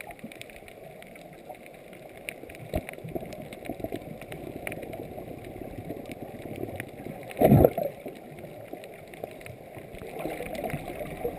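Underwater sound through a camera's waterproof housing: muffled moving water with scattered faint clicks and crackles, and one loud, brief low rush of noise about seven and a half seconds in.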